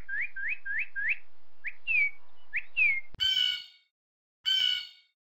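Killdeer calling: a quick series of rising, whistled "dee" notes, then a few spaced notes, some slurring downward. About three seconds in the sound cuts off abruptly, and two louder, harsher ringing notes follow, with silence between them.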